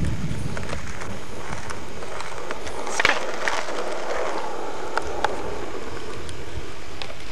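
Skateboard wheels rolling on pavement, with a few sharp clacks from the board, the loudest about three seconds in.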